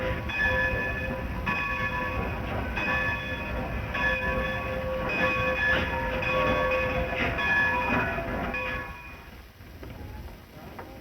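Train running with a low rumble and its bell ringing over and over; the noise falls away about nine seconds in.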